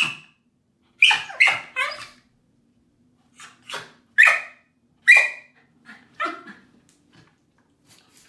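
Australian Terrier barking: about ten short, high-pitched barks in uneven bursts, with three in quick succession about a second in and several single barks after.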